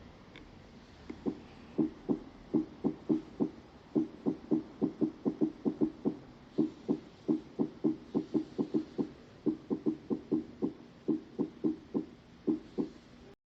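Recorded heart sounds: a fast run of dull low thuds, about three a second, at uneven spacing with occasional longer gaps.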